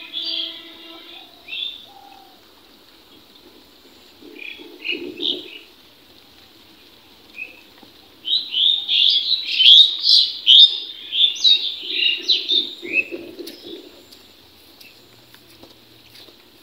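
Several birds chirping in short, high calls, scattered at first and then a busy run of rapid chirps for a few seconds past the middle.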